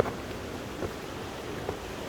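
Steady wash of sea waves and wind along a shoreline, with light footsteps about once a second.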